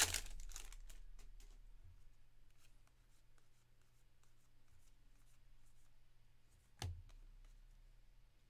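Trading cards handled by hand: a short rustle at the start, then faint scrapes and ticks as the cards slide off one another while being flipped through, with one sharp tap about seven seconds in.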